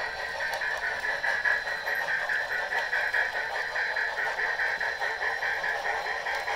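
Model steam locomotives running under DCC, their sound decoders playing steady steam chuffing through small onboard speakers, mixed with the rattle of the trains' wheels on the track.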